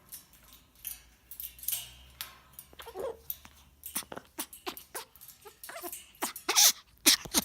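Grey parrot growling in imitation of a tiger: a quick series of short, rough noises, a few of them with a brief pitched squeak.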